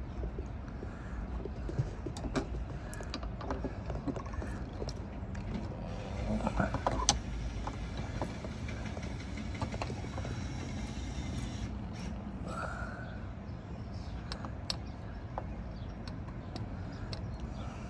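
Hand tools and metal lock parts being handled: scattered clicks and knocks, busiest about six to seven seconds in, over a steady low rumble.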